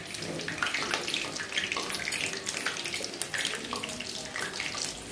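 Laung lata pastries deep-frying in hot oil in a kadhai over medium heat: a steady, dense crackling sizzle.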